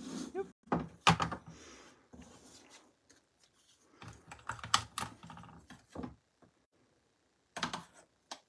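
Clear plastic storage boxes and their snap-on lids being handled and set down on a desk: a series of separate clicks, knocks and light rattles, with a quiet gap shortly before a last pair of knocks near the end.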